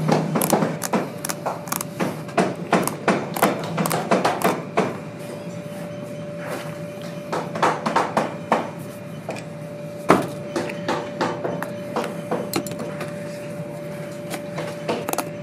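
Sharp clicks and snaps of a hand tool cutting through the old stitching of a worn leather boot, dense for the first few seconds, then sparser. One loud knock comes about ten seconds in, over a steady hum.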